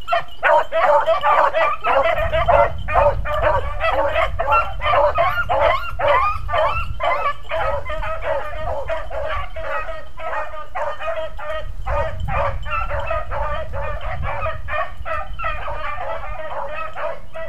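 A pack of beagles baying on a run, many voices overlapping in a continuous chorus of short cries, with the chorus easing a little in the second half.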